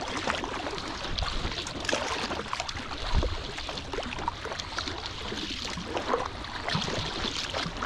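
Packraft paddling on a lake: the paddle blades splash in and out of the water, with dripping and lapping water and a couple of low thumps about three and seven seconds in.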